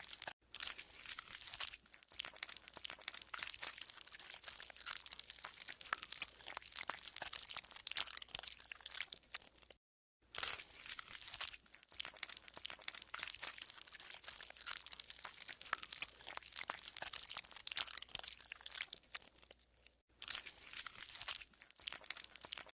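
Green slime being squeezed and worked by hand, squelching with a dense run of crackly clicks and pops. It breaks off into silence for a moment about ten seconds in, then carries on.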